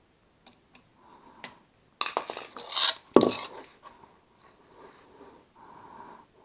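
Metal mounting brackets and tools clinking and clattering against a blower motor's steel housing as the brackets are fitted on. A few light ticks, then a burst of clattering about two seconds in, with the loudest clank a little after three seconds, then quieter handling.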